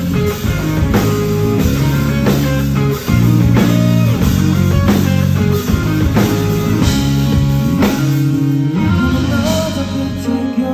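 Pop-rock backing track played loud, with sustained chords and a steady drum beat; the drums drop out about eight seconds in, leaving the held chords.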